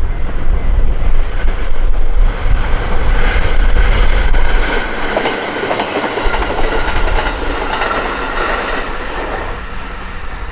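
A train passing close by, its wheels clattering rapidly over the rails with a heavy rumble underneath; the sound eases off near the end.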